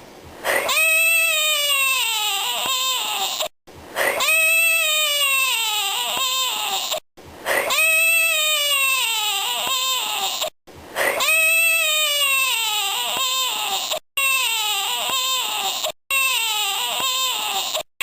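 A shrill, wailing creature call, billed as a dinosaur sound, repeated about six times. Each call falls in pitch over about three seconds and is cut off abruptly. The copies are nearly identical, as if one recording were looped.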